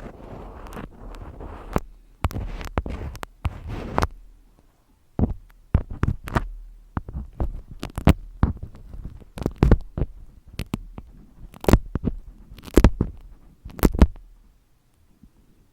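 Close-miked ASMR trigger sounds: a few seconds of dense crackling with taps, then, after a short pause, irregular sharp taps and clicks.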